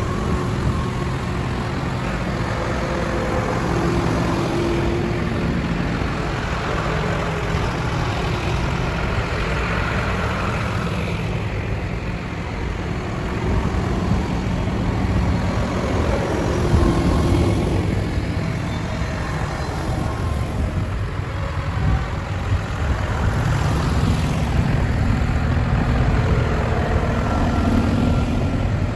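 Several tractor engines running steadily as the convoy travels along, the sound swelling a little twice as machines come closer.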